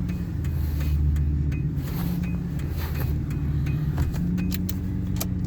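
Ford F250 pickup idling with its hazard flasher relay clicking in a steady rhythm. The hazards work while the turn signals are dead.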